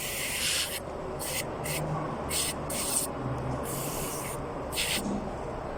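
Aerosol cleaner sprayed in about six short hissing bursts, the first and longest about a second, the others shorter and spaced irregularly, over a low steady hum.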